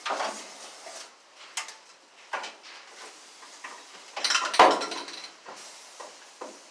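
Irregular metallic clinks and knocks from tools and parts being handled, with a louder, rougher clatter about four seconds in.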